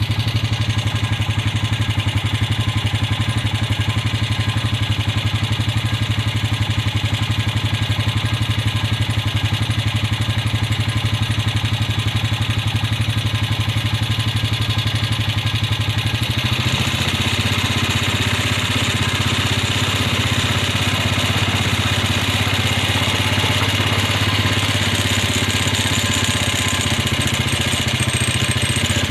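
Small engine running steadily with an even, rapid firing pulse; about sixteen seconds in its note changes and gets a little louder.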